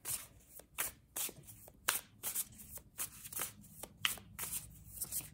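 Tarot cards being shuffled by hand: a quick, even run of papery swishes, about three a second.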